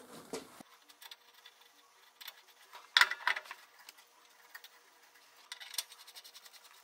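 Small metallic clicks and ticks of a nut being spun by hand onto the threaded spindle bolt of a mower blade, with a sharper metal clink about three seconds in and a run of fine rapid ticks near the end.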